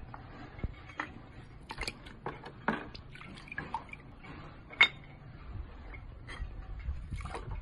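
Water dripping and splashing into a bucket as a thin brick veneer piece is dipped in and lifted out, scattered drips with one louder splash a bit over halfway through. A low rumble joins in near the end.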